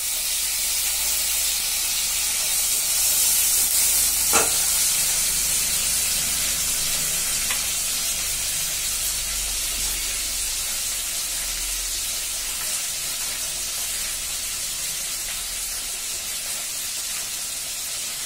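Shallots, garlic and freshly added tomato sizzling in hot oil in a pan: a steady frying hiss that swells over the first few seconds, then slowly eases. One sharp knock about four seconds in.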